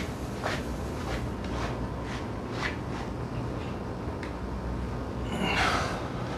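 Thin-wall steel tube being bent round the forming die of a homemade tube bender: a few faint creaks about a second apart, then a louder, longer rasp about five seconds in, over a steady low hum.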